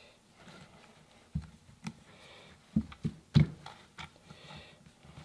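Handling noises from fitting a small broken piece of a wooden gunstock onto brass pins: about half a dozen light knocks and clicks, the loudest about three and a half seconds in, with faint rustling between them.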